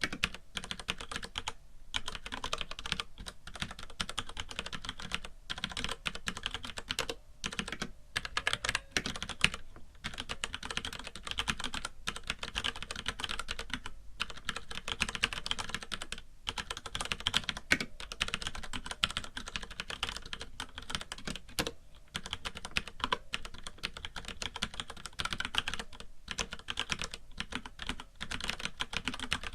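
Continuous fast typing on a FILCO Majestouch mechanical keyboard with Cherry MX Brown (tactile) switches, a rapid clatter of key clicks with brief pauses every few seconds. A light hiss runs underneath.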